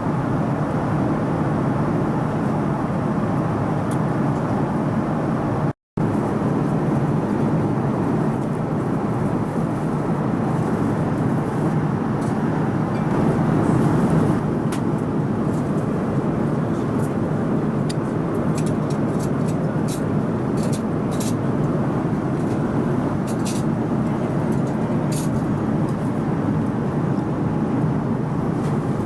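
Steady cabin noise inside a Boeing 787 airliner in flight: an even roar of engines and airflow, with faint light ticks scattered through the middle part. The sound cuts out for an instant about six seconds in.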